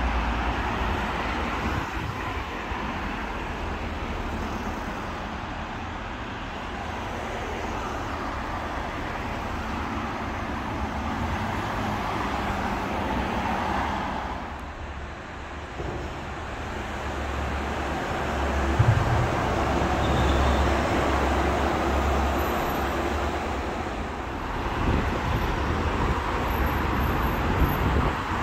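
Road traffic on a busy road under a concrete flyover: cars driving past one after another, a steady rush of tyres and engines with a low rumble that swells and eases as vehicles come and go.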